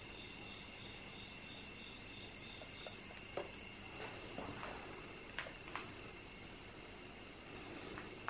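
Chorus of chirping insects such as crickets: a steady high-pitched trill, with a second pulsing chirp that stops about three seconds in. A few faint clicks come through over it.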